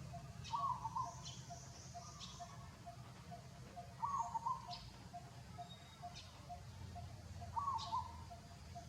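Birds calling: a short two-part call repeated three times, about every three and a half seconds, over a steady rapid pulsing of short notes and a few thin high chirps.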